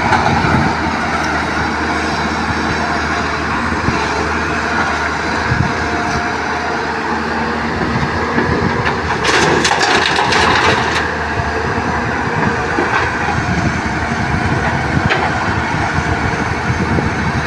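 Hyundai crawler excavator's diesel engine running steadily under work. About nine seconds in, a two-second clatter of rocks and earth dumped from the bucket into the steel body of a dump truck.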